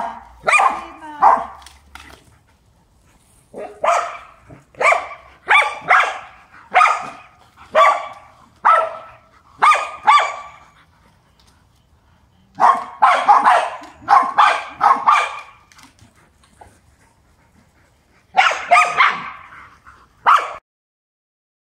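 Large dogs barking in bouts of quick barks about a second apart, with short pauses between bouts. The barking stops shortly before the end.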